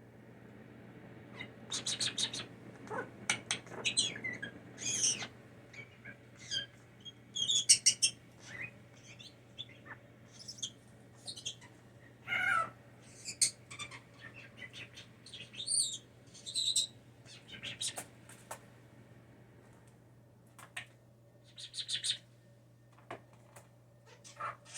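Pet blue jay giving a long run of short, irregular chirps, squeaks and chattering calls, some sliding in pitch. A steady low hum runs underneath.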